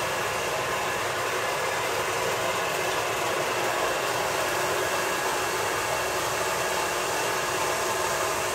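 Steady, even hiss-like noise with a faint hum in it, unchanging throughout.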